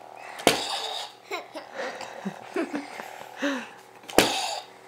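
Toy lightsaber's electronic sound effects: a steady hum with two loud swishing bursts as it is swung, about half a second in and near the end. Short vocal sounds and soft laughter come in between.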